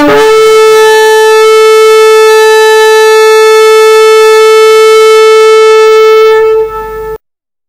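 A horn blown in one long held note, steady in pitch. It weakens slightly near the end and cuts off abruptly about seven seconds in.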